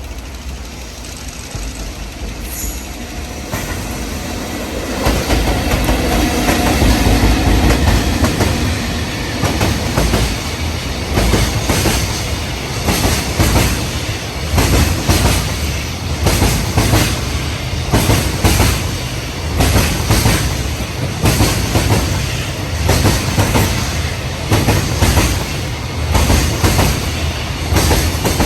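Freight train passing at speed, growing louder over the first few seconds. Then its wheels clatter over the rail joints in a steady, repeating clack-clack rhythm as the wagons go by.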